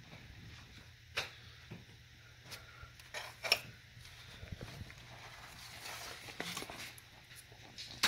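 A few scattered light clicks and knocks from tools and parts being handled in an engine bay, the sharpest about three and a half seconds in, over a low steady hum.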